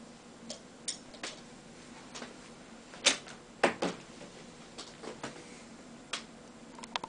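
Irregular sharp clicks and taps, a few a second at most, the loudest a group of three about three seconds in, over a faint steady hum.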